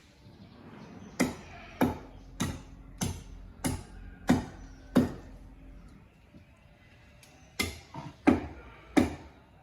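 Rhythmic chopping strikes with a hand tool on wood, about one and a half blows a second: seven blows, a pause of a couple of seconds, then another run of blows.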